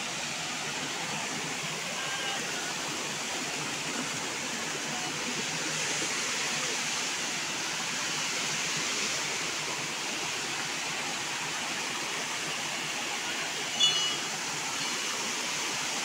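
Steady rushing of a small waterfall and stream running over rocks. A short, sharp high-pitched sound stands out near the end.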